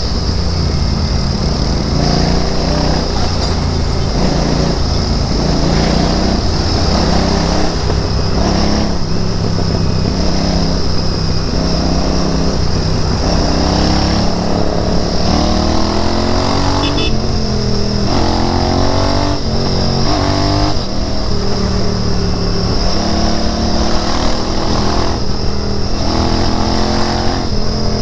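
Royal Enfield Interceptor 650's parallel-twin engine running on the move, its revs rising and dropping again and again as the bike accelerates through the gears and slows, with a run of quick rising sweeps about halfway through.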